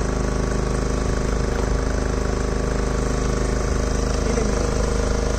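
Fishing boat's engine idling: a steady, even drone that holds its pitch throughout.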